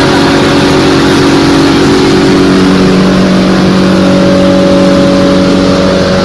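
Fish feed plant machinery running: a loud, steady mechanical drone with several steady humming tones, and a lower hum joining about two seconds in.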